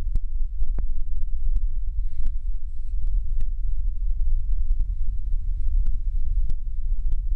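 Steady low rumble on the microphone, with scattered sharp clicks and taps at irregular intervals.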